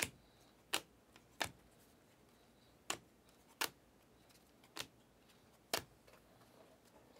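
Stack of Panini Select basketball trading cards being flipped through one card at a time: seven sharp clicks at uneven gaps of about a second, one as each card comes off the stack.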